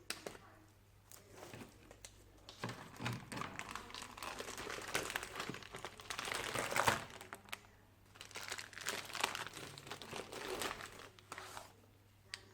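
Crinkling and rustling of crinkly material being handled, in two long spells, with a few sharp clicks and knocks before and between them.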